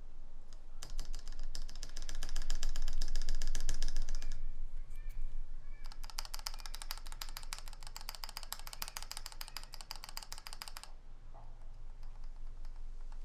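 Enter key on a KBD67 MKII mechanical keyboard pressed rapidly over and over, a fast run of clicks, a pause, then a second longer run. It is a sound test of the enter key's freshly lubed stabilizer, which sounds very nice to the builder.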